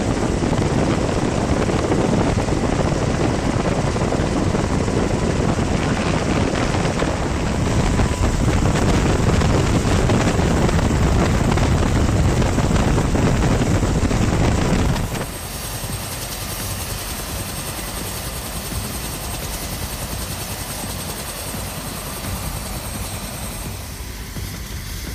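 Rescue helicopter's rotor and engine noise heard from the open cabin door during a hoist: a loud, steady, heavy din. About 15 seconds in it cuts to a quieter, thinner steady noise.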